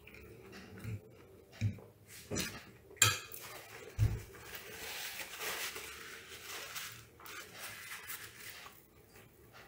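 Metal fork clinking and scraping on a ceramic plate: a few sharp clinks in the first three seconds and a heavier knock about four seconds in, followed by several seconds of softer, steady noise.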